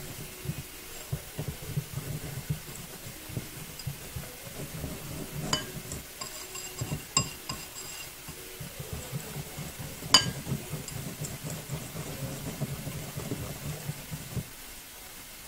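Wire whisk beating doughnut-hole batter in a ceramic bowl: a ragged run of soft taps, with a few sharper ringing clinks of the whisk against the bowl, the loudest about ten seconds in.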